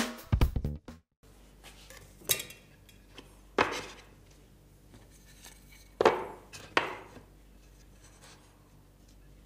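Wooden rails being set down and butted against a plywood board on a workbench: four sharp wood-on-wood knocks in two pairs, the pairs about three seconds apart. A short tail of background music ends abruptly in the first second.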